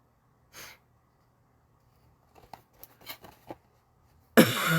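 A person's loud, breathy groaning sigh near the end, from someone suffering a headache. Before it come a short breath about half a second in and a few faint clicks.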